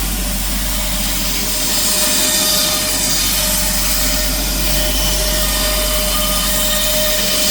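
CNC router spindle running with an 8 mm cutter, milling around the outside of a marine plywood disc: a steady whine over continuous cutting noise.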